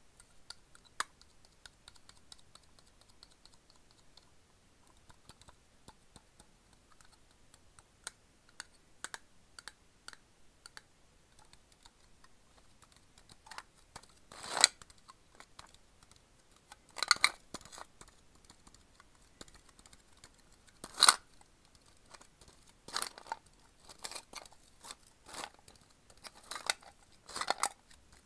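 Fingernails tapping and scratching on the printed side of a Sakuma Drops metal candy tin. Sparse light clicks at first, then louder clicks and scrapes in clusters over the second half.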